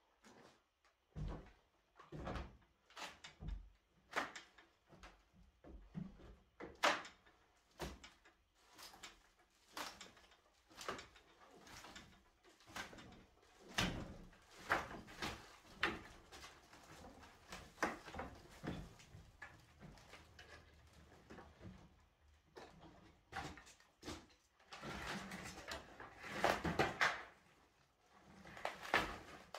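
An old timber stud wall with wooden lath being pulled apart by hand: many irregular cracks, knocks and clatters of wood breaking and dropping, with a longer stretch of scraping and clattering debris near the end.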